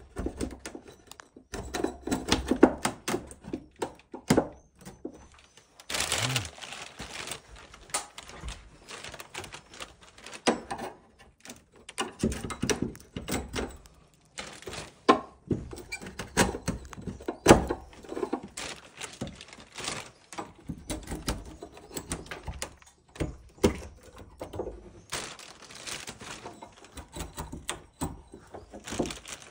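Irregular knocking, tapping and scraping as swiftlet nests are pried off the wooden rafters of a nest house during harvest.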